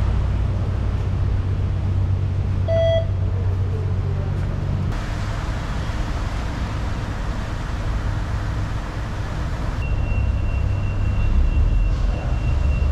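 Steady low engine rumble from inside a moving vehicle, with a short electronic beep about three seconds in and a thin steady high tone over the last three seconds.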